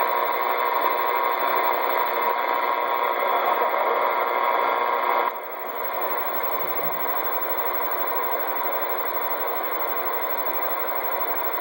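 Steady static hiss from a CB radio receiver's speaker, an open channel with no voice on it; it drops slightly in level a little over five seconds in.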